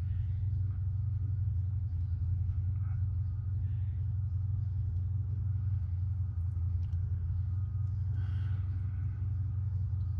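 A steady low rumble throughout.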